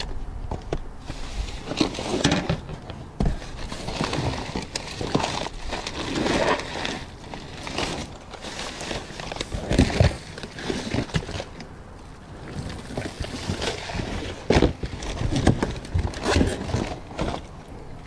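Gloved hands rummaging through a dumpster of packaged goods: irregular rustling, crinkling and clattering of cardboard boxes and plastic containers being shifted, with a few sharper knocks.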